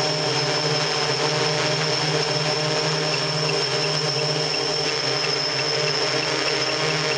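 Electric octocopter's eight motors and propellers running steadily in a hover, a constant drone with a high, steady motor whine.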